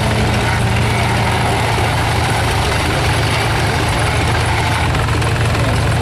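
Old belt-driven sawmill running off a tractor engine: a steady low engine drone that stays even throughout.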